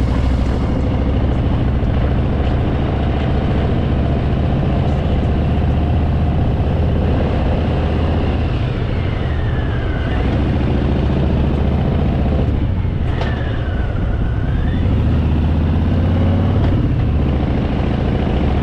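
Harley-Davidson Fat Boy's V-twin engine running steadily at low speed, its pitch dipping and then rising again partway through.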